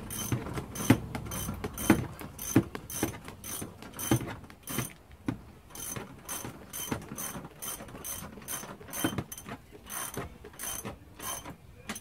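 Socket ratchet wrench clicking rapidly and a little unevenly as it is swung back and forth, running in the anchor bolt of a seat belt buckle stalk.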